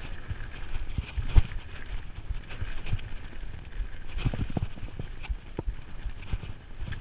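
Mountain bike rattling over a rough, rocky dirt trail: the tyres crunch over loose rock and the bike gives irregular knocks and clacks, with a sharp knock about a second and a half in and a cluster of them about four seconds in.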